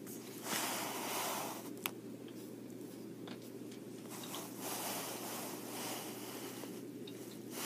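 Soft rustling and handling noise from hands moving over a cotton blanket and arranging plastic pacifiers, in several short stretches, with one small sharp click about two seconds in. A faint steady hum runs underneath.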